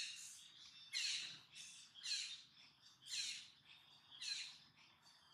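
A bird calling over and over, about once a second: five short, harsh, high notes, each sliding downward.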